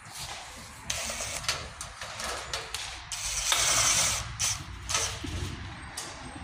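A cordless drill drives a screw into a galvanized steel drywall profile in a loud burst lasting about a second, near the middle. Around it are scraping and clicks from the metal studs being handled.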